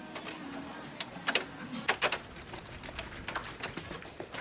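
Irregular sharp clicks and knocks over a steady background hum, from a handheld phone camera being carried and jostled while walking.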